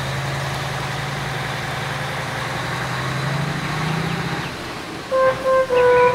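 Heavy truck's diesel engine running steadily as the lorry pulls away up the road, swelling slightly and then fading. Music with sustained notes comes in about five seconds in.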